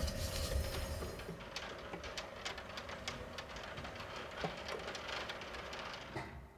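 Electric stage-curtain motor running, with the curtain sliding along its track; the rumble and swish die away about a second in, leaving a faint hum and scattered light clicks.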